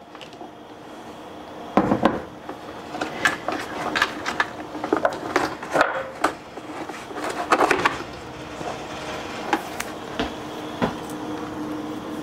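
Irregular hard knocks and clatter as the jar and base of a Vitamix blender are lifted, shifted and set down on a wooden cutting board, the loudest knock about two seconds in. A steady low hum runs underneath.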